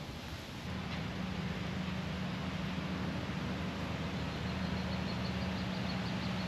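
A steady low engine drone, running at constant speed, sets in about a second in over a background hiss. A faint rapid high ticking joins in during the second half.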